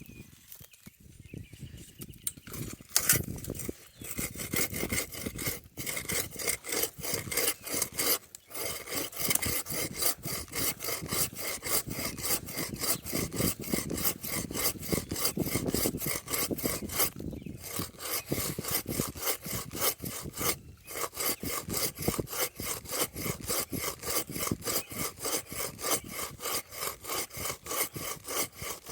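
A hand saw cutting through a dead apple-tree branch: quick, even push-pull strokes of the blade rasping through the wood. The sawing starts about three seconds in and stops briefly a few times.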